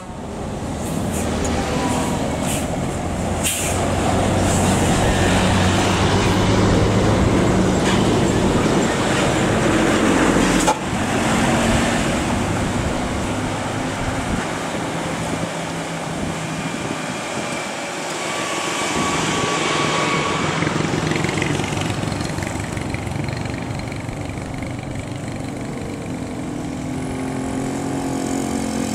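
A large bus's diesel engine runs close by, growing louder about four seconds in. There is a sudden sharp knock around eleven seconds in, and the engine sound continues after it.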